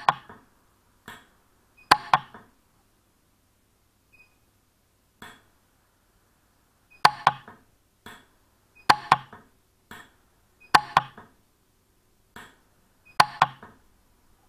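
Lampert PUK 3 jeweller's pulse-arc welder firing short micro weld pulses on a 9ct gold ring: a series of sharp snaps, mostly in quick pairs, every one to two seconds, with a few fainter single clicks between them.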